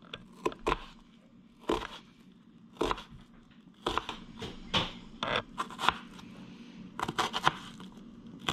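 Kitchen knife cutting through a peeled onion and striking a plastic cutting board, in irregular strokes with a quicker run of cuts near the end.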